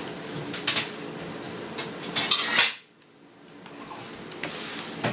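A plate and a plastic cheese mould clinking and knocking as the mould is set down on the plate, with a few sharp clinks and the busiest clatter just before the sound cuts off abruptly about three seconds in, over a low steady hum.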